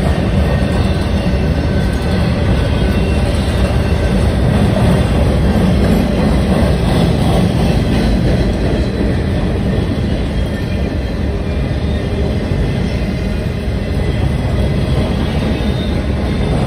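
Freight train boxcars rolling past, a steady rumble of steel wheels on the rails.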